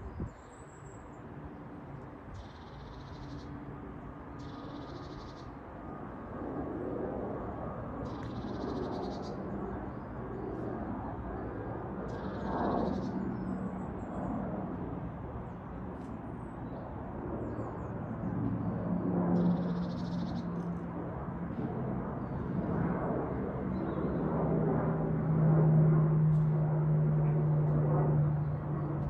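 Boeing Poseidon MRA1 jet flying past overhead: the steady drone of its two CFM56 turbofan engines grows louder throughout and is loudest near the end. A bird calls briefly several times in the first twenty seconds.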